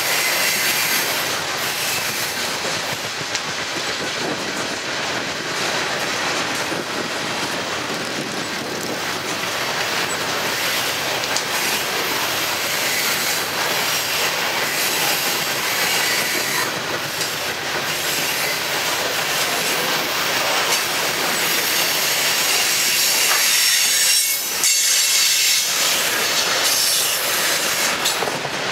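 Coal train's hopper cars rolling past close by: steel wheels running on the rails with a steady, loud noise.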